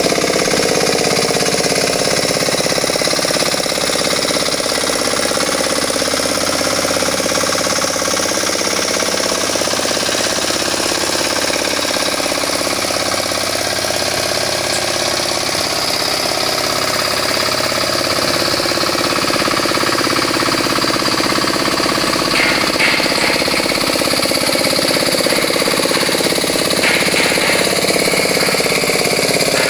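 Two-wheel hand tractor's small single-cylinder engine running steadily under load as its cage wheels churn through a flooded rice paddy, puddling the mud for rice planting.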